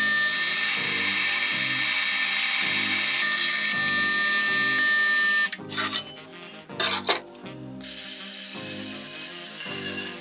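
Drill press boring through steel plate with a hole cutter: a steady cutting noise with a high whine, stopping about five seconds in. A few clicks and knocks of the metal plate being handled follow, then steady drilling noise resumes near the end, over quiet background music.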